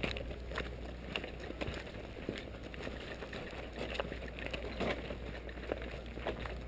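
Movement and handling noise from a camera carried low while walking: irregular knocks every half second or so, like footfalls, over a steady low rumble.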